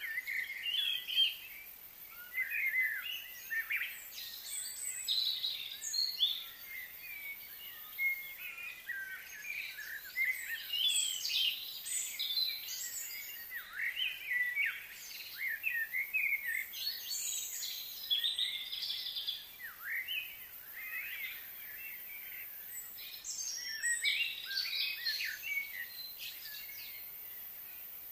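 Birds chirping: many short, quick high calls, overlapping and coming and going.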